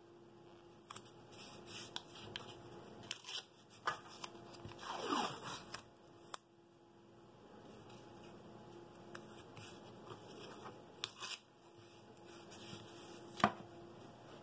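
Blue painter's tape being pulled off its roll and pressed down onto a wooden board, with rustles and light clicks of hands working the tape and paper. About five seconds in there is a longer rising screech as a length of tape is unrolled, and near the end a single sharp knock as the tape roll is set down on the board.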